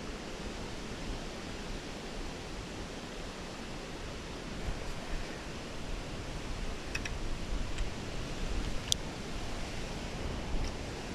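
Steady rushing of flowing river water, with a few faint clicks in the second half.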